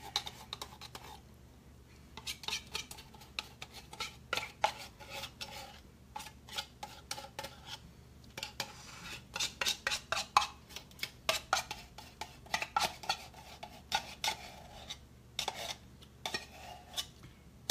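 Light metallic clicks and clinks in irregular runs from a tin can and a stainless-steel pan while thick sweetened condensed milk is emptied from the can into the pan.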